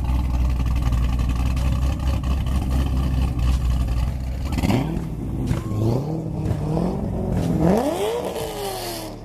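Supercharged V8 car engine idling with a steady low rumble, then revved a few times in the second half, each rev rising and falling in pitch.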